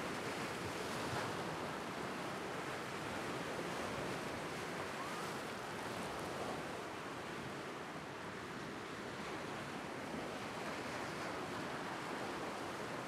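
Lake Superior waves washing and breaking over a rocky shoreline, a steady rush of surf that swells a little in the first seconds and eases slightly after the middle.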